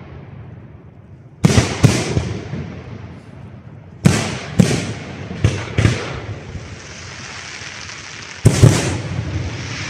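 Aerial firework shells bursting overhead, each bang sharp and followed by a rolling echo. The bangs come in clusters: two about a second and a half in, four between about four and six seconds, and two more near the end. A steady hiss fills the gaps late on.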